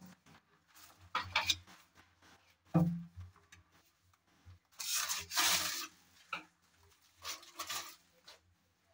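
Laminated cabinet door being swung on its concealed cup hinges, giving several short rubbing and knocking sounds as the door and hinges move.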